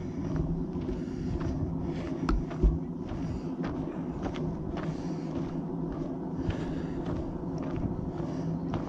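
Footsteps of a hiker walking on a trail at a steady pace, about one step every 0.7 seconds, over a steady low hum.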